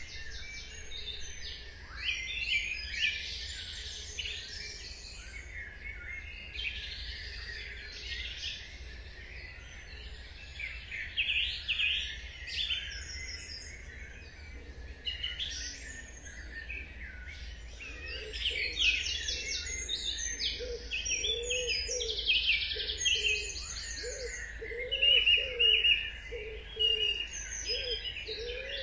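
Dawn chorus: many songbirds singing at once, overlapping high trills, warbles and chirps. From a little past halfway, a low cooing call repeats steadily underneath, like a pigeon's, over a faint steady low hum.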